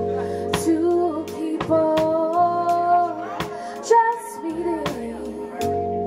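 A live band playing: a woman sings long held notes, backed by electric guitar, keyboard and drum kit, with regular cymbal taps.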